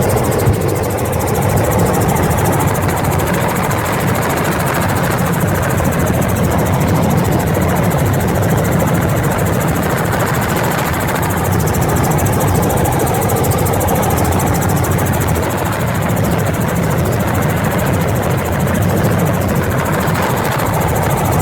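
Helicopter in flight, heard from aboard: a loud, steady drone of engine and rotor that holds unchanged throughout.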